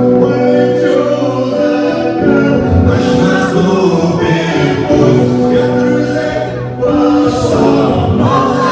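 Live band music with several voices singing together.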